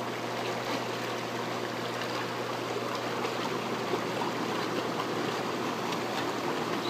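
Four Winds hot tub's jets running on pump one, the water churning and bubbling steadily.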